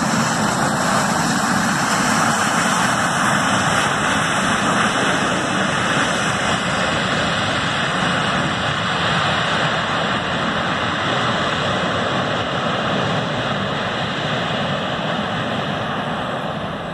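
Jet engine noise from a Boeing 737 rolling out on the runway after landing, a steady rushing roar that slowly fades as the plane moves away.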